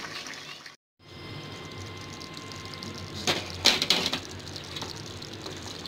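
Chicken karahi simmering in the pan with a low steady hiss, and two sharp clinks of cookware a little past the middle. The sound cuts out completely for a moment just before a second in.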